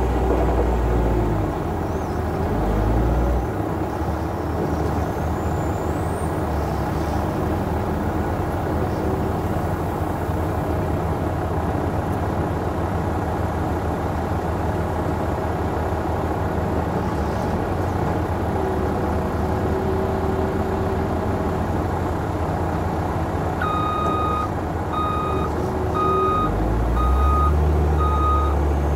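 CAT 966H wheel loader's diesel engine working hard while loading a truck trailer, with a heavy low rumble surging at the start and again near the end. From about 24 seconds in, the loader's reversing alarm beeps steadily, roughly once a second.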